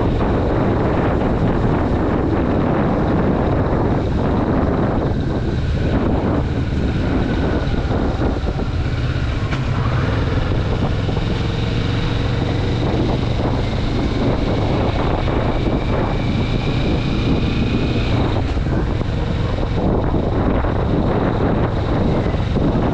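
Kawasaki Vulcan S's 649 cc parallel-twin engine running steadily at road speed, under heavy wind buffeting on the microphone.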